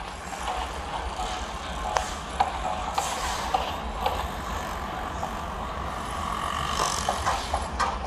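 Outdoor traffic noise with a steady low rumble and scattered sharp clicks and knocks, the loudest about two seconds in and a cluster near the end.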